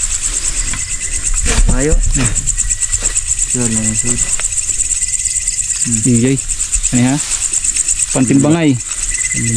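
Night insect chorus: a steady, high, rapidly pulsing trill. A thin, steady lower tone joins for a couple of seconds around the middle.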